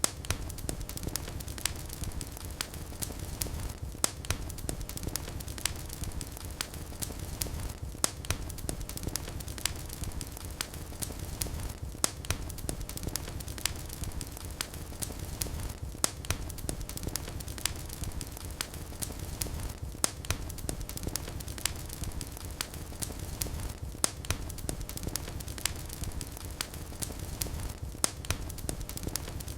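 Wood fire in a fireplace crackling, with many sharp irregular pops over a steady low rumble. Louder pops come about every four seconds.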